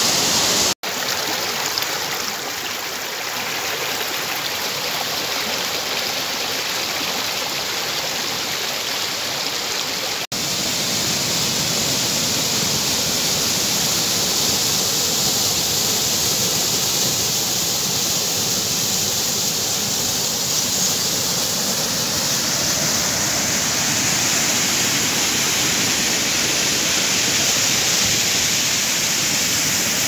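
Waterfall pouring into a rocky plunge pool: a steady rush of falling, churning water that cuts out briefly twice, about a second in and about ten seconds in.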